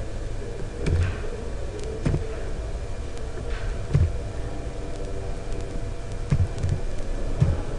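Sparse computer keyboard keystrokes, a dull knock every second or so, over a steady low hum.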